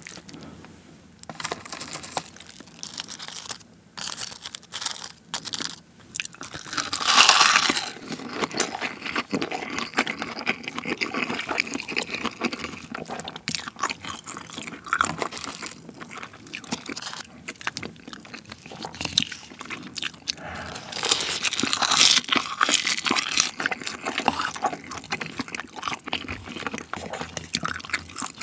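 Close-miked eating sounds: chewing and wet mouth noises from mouthfuls of rice mixed with soy-sauce-marinated raw crab, with a wooden spoon scooping in a ceramic bowl. Two stretches, about seven and twenty-one seconds in, are louder.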